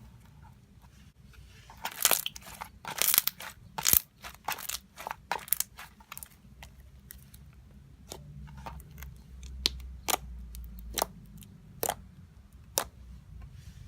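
Basic slime being pressed and stretched by hand, making crisp clicks and bubble pops: a dense run of loud clicks from about two to six seconds in, then scattered single pops.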